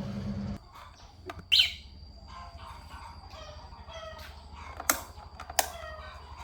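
A low steady hum cuts off about half a second in. After it, birds chirp and call repeatedly, with three louder sharp calls.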